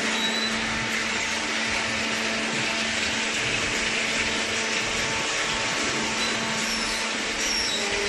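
Vertical hydraulic baler's electric motor and hydraulic pump running: a steady whirring drone with a constant hum under it.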